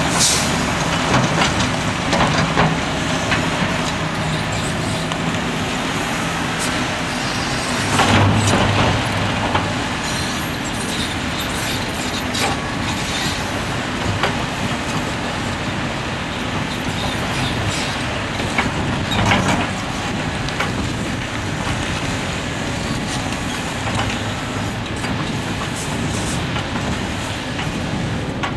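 Liebherr R974B crawler excavator working: its diesel engine runs steadily under hydraulic load, with broken rock clattering and scraping as the bucket dumps into a dump truck and then digs into the rock pile. The engine labours harder about eight seconds in and again briefly near twenty seconds.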